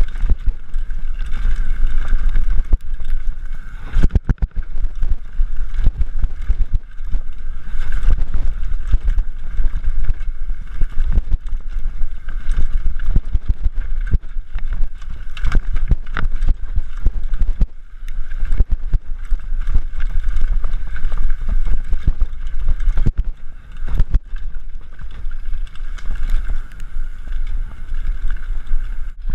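Mountain bike riding down a rough trail: steady wind rumble on the microphone, with frequent rattles and knocks from the bumps.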